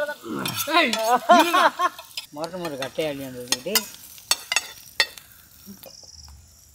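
Bread omelette frying in an aluminium pan over a wood fire, with a metal spatula scraping and turning it; a few sharp taps of the spatula on the pan come in the second half. Over the first half a man's voice calls out in drawn-out, rising and falling tones without clear words.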